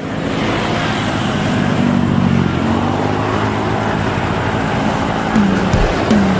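Road traffic: motor vehicles, motorcycles among them, passing on a road with a steady engine drone. Two short pitched sounds stand out near the end.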